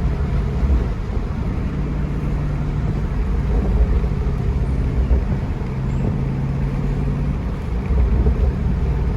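2018 Jeep Grand Cherokee SRT's 6.4-litre V8, fitted with an AFE cold air intake and Borla cat-back exhaust, running steadily with a deep rumble and small shifts in engine speed; the engine is not yet at full operating temperature.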